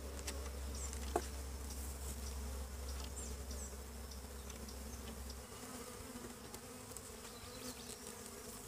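Honey bees of a queenless colony buzzing in a steady hum around the opened hive. A few light clicks come from the wooden hive frames being handled, including a sharp one about a second in.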